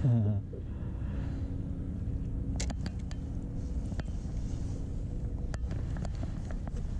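A steady low engine rumble with a constant hum runs throughout. A short falling vocal sound comes right at the start, and a few light clicks follow as the spinning reel is handled.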